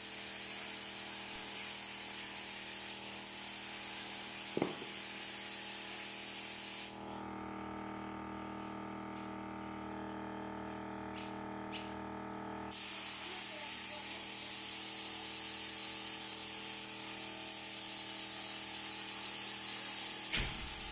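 Compressed-air gravity-feed paint spray gun hissing as it sprays paint onto a wall. The spraying stops about a third of the way in and starts again a few seconds later, over a steady hum.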